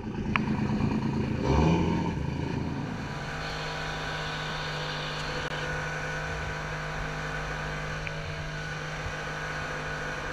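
Outboard engine of an RNLI inflatable inshore lifeboat revving up about a second and a half in, then running at a steady speed under way, with water rushing past the hull.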